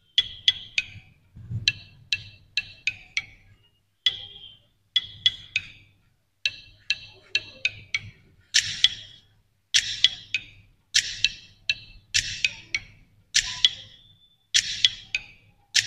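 Electronic background music played through Boult Audio Airbass X50 wireless earbuds in open air. It sounds thin and high-pitched: mostly a percussive beat in short clusters about once a second, with almost no bass.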